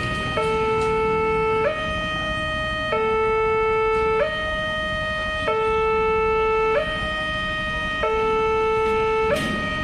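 Railway level crossing warning alarm sounding with the barriers down: an electronic two-tone signal alternating steadily between a lower and a higher tone, each held about a second and a quarter. The alarm signals that a train is approaching.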